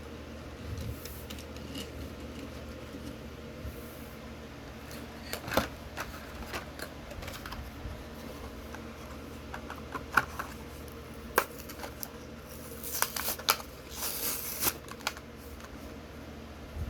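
Hot Wheels toy-car packaging being handled: scattered clicks and taps of plastic and cardboard, with a run of crinkly rustling near the end.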